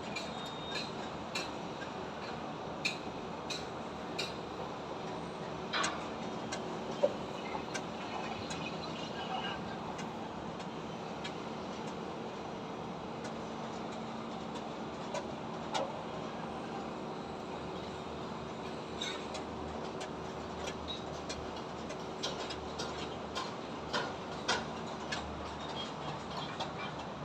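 Construction-site and traffic ambience: a steady hum of machinery and passing traffic, with scattered sharp knocks and clanks throughout, the loudest about seven seconds in.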